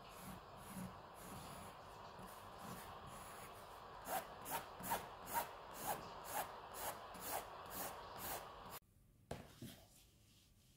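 Brown pencil scratching on drawing paper, light and uneven at first. From about four seconds in it becomes brisk hatching, about two strokes a second, then cuts off suddenly near the end.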